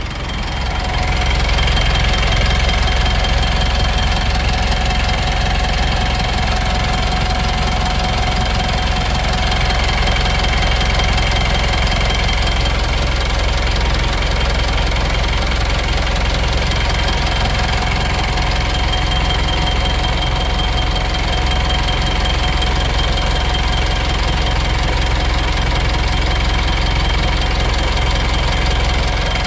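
Mitsubishi Pajero Sport 2.5 turbodiesel engine running steadily, with a thin high whine over the engine noise that comes and goes every few seconds: the extraneous noise the owner is trying to trace.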